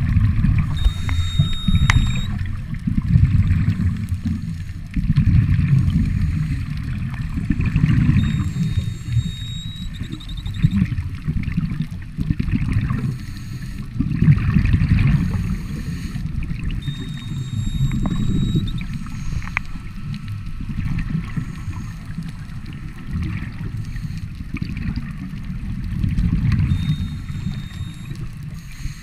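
Scuba diver breathing through a regulator underwater: a short high tone on each inhalation, about every eight seconds, and low rumbling bubble noise from the exhalations that swells and fades in waves.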